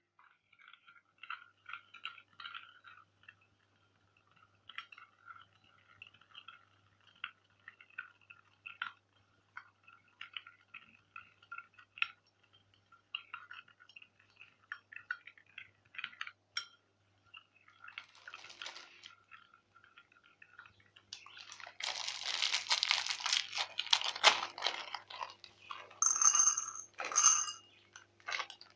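A metal spoon scraping and clinking against a cut-glass bowl as it stirs thick chocolate sauce, in small irregular strokes. About three-quarters of the way through there is a louder crunching rustle for a few seconds, then a few sharp, ringing glass clinks near the end.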